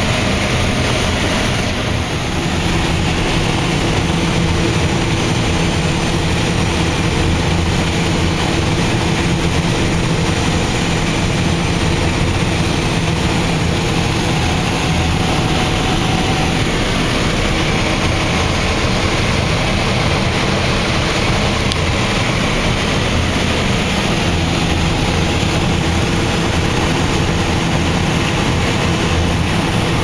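Lexion 595R combine running while harvesting corn, heard from inside its cab: a steady engine and machinery drone with a low hum.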